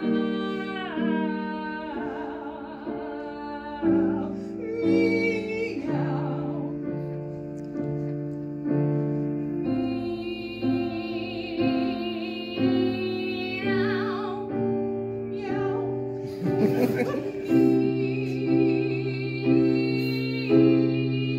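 Two female operatic voices singing meows back and forth with wide vibrato, over piano chords struck about once a second.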